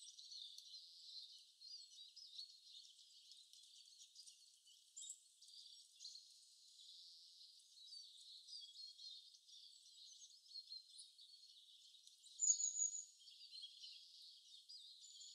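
Faint, high-pitched chirping and twittering, like small birds, with one brighter, louder chirp near the end.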